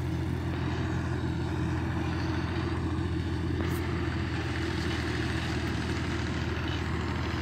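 Tractor's diesel engine running steadily close by, a low, even drone with no change in speed.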